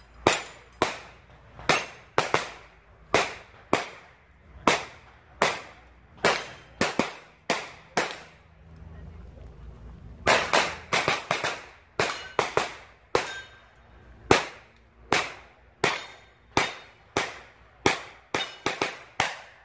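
9mm pistol-caliber carbine firing several dozen shots, in quick pairs and fast strings, with a break of about two seconds midway and a rapid string near the end.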